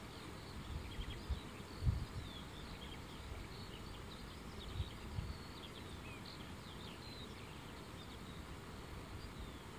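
Faint countryside ambience of small birds chirping and twittering in many short, quick notes, over a low rumble with a few soft bumps.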